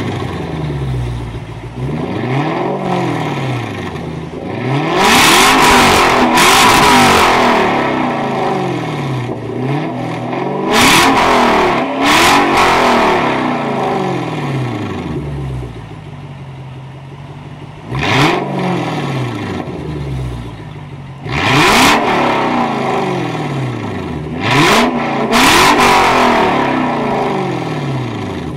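Lexus GS430's 3UZ-FE 4.3-litre V8 revved over and over while standing, through an exhaust with its mufflers, catalytic converter and resonators removed: quick rises and falls in pitch, some short and some held higher and louder, with idle between them.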